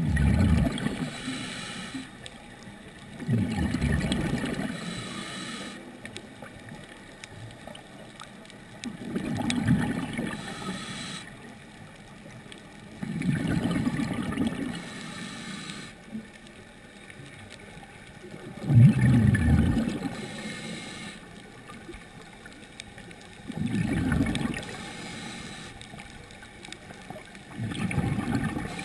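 Scuba diver's exhaled bubbles rumbling and gurgling from the regulator, heard underwater, in seven bursts of a second or two each, about every four to six seconds, over a steady low hiss.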